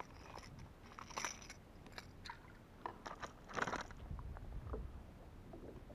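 Scattered light clicks, scrapes and rustles of a fish and fishing gear being handled in a plastic kayak, in short bursts, the loudest about three and a half seconds in.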